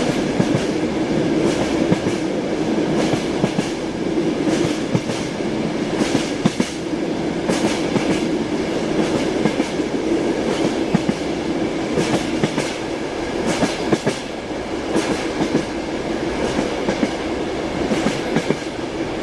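Rhythmic clickety-clack of train wheels passing over rail joints, heard inside a passenger compartment, over the carriage's steady rumble.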